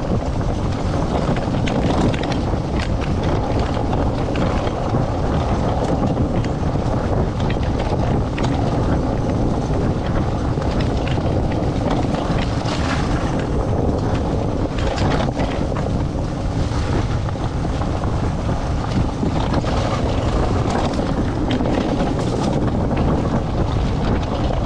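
Wind buffeting the microphone over the steady rumble and rattle of a four-wheeled dog training cart rolling fast on a dirt trail, with scattered clicks from the cart's metal frame.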